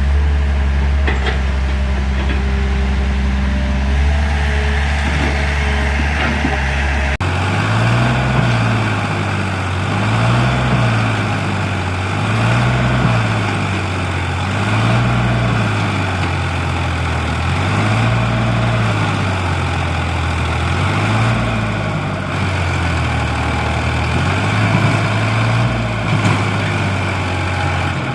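Heavy diesel engine running loud and steady for about seven seconds. Then, after a sudden change, its pitch rises and falls in a regular cycle about every two seconds.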